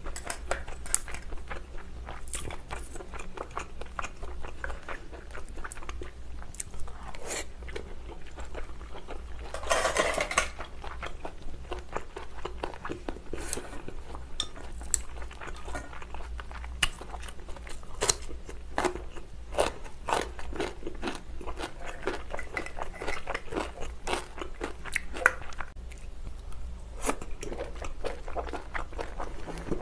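Eating sounds from seafood stew: chewing and mouth noises, with many small clicks of chopsticks and scallop shells against the glass dish.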